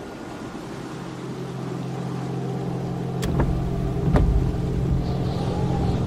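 Car driving along a road: steady engine and tyre noise that grows louder, with two sharp knocks a second apart near the middle.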